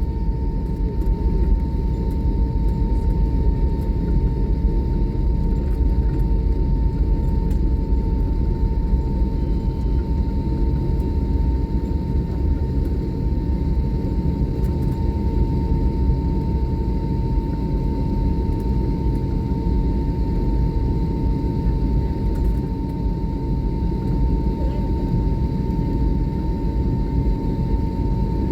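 Airliner cabin noise on the ground after landing: a steady low rumble with a constant hum above it.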